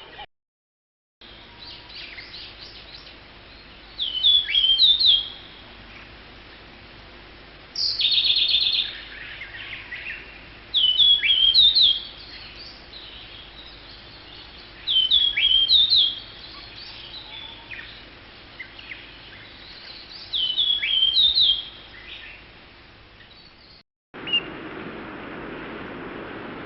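A wild bird singing: a short phrase of sharp, falling whistled notes, repeated four times about five seconds apart, with a fast rattling trill about eight seconds in.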